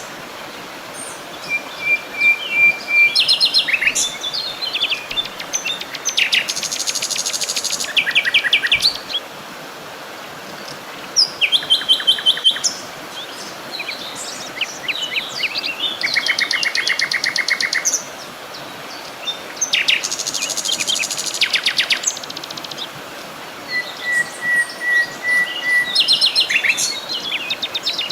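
Several songbirds singing in turn, with fast rattling trills and a few short level whistles, over a steady background hiss.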